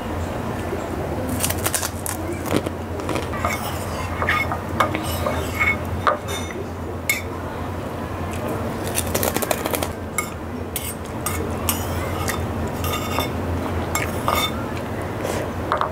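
Metal spoon clinking and scraping against a porcelain rice bowl while eating, in short irregular clinks throughout, over a steady low hum.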